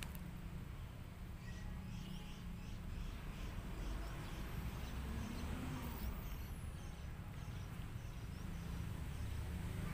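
Outdoor ambience: a steady low rumble, with a small bird chirping faintly a few times a second during the first half.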